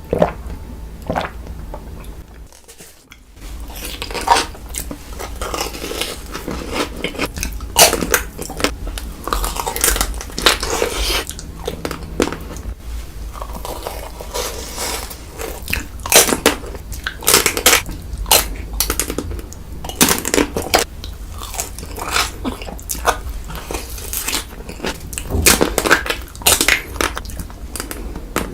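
Close-miked biting and chewing of crunchy food: a run of sharp, irregular crunches, several a second, with a short break about three seconds in.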